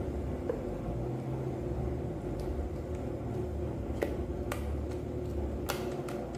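Thick chocolate pudding being scraped out of a stainless-steel saucepan into a plastic bowl: a few light clicks and taps of the spatula against the pan, over a steady low hum.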